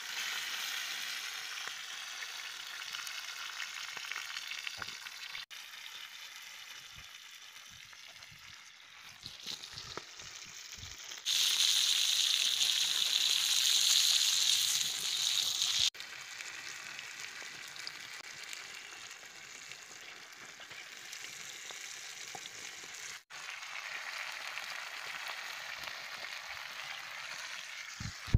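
Whole masala-coated fish frying in oil in a shallow pan, a steady sizzle that grows much louder for a few seconds near the middle.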